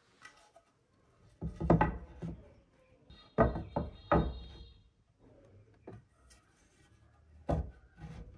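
Planed pine boards knocking against one another and against a wooden tabletop as they are laid down and pushed together side by side. There are several separate wooden knocks, with quiet between them.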